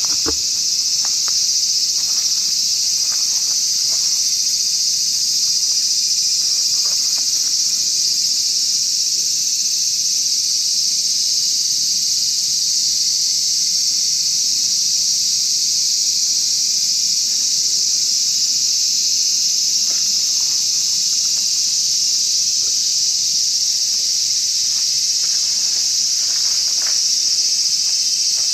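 A dense insect chorus making a high, steady drone that does not let up, with a few faint ticks scattered through it.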